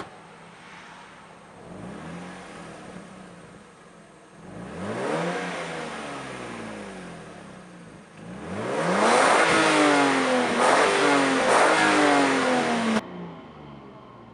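Lexus IS200's 2.0-litre straight-six revved through an HKS Silent Hi-Power muffler. There is a short blip, then a bigger rev that falls away, then a run of several high revs in quick succession, and the sound cuts off abruptly near the end.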